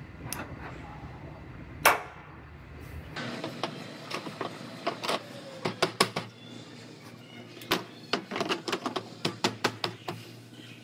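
Clicks and light knocks as a plastic taillight assembly is handled and pressed into place against the car's rear body panel during a test fit. There is one sharp snap about two seconds in, and the clicking comes in quick runs.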